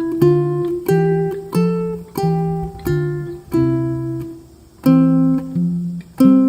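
Acoustic guitar music: chords strummed about three times every two seconds, each ringing out and fading, with a short pause about four seconds in.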